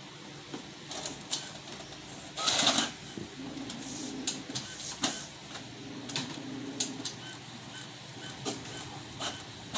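Brother DCP-T820DW ink-tank inkjet printer printing a page. Its feed and print-head motors whir, with scattered clicks from the mechanism and a short louder rush about two and a half seconds in.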